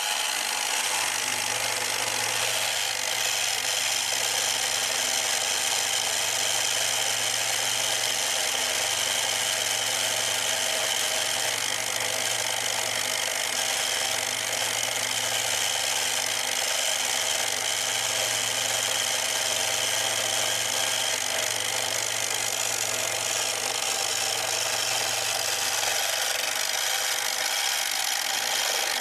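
A 550-watt mini milling machine with a brushed DC motor runs steadily while its end mill takes a step cut through a clamped piece of scrap aluminium. The cut makes a continuous hissing noise over a low motor hum.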